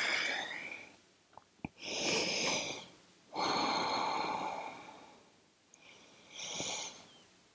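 A person breathing audibly in slow, deep breaths, four breaths in and out, the longest lasting nearly two seconds in the middle.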